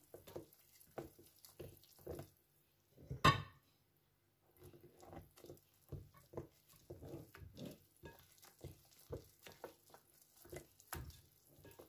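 Hand squeezing and mixing flour into wet pandesal dough in a glass bowl: soft, wet squishing strokes about two or three a second, with one sharper knock just over three seconds in.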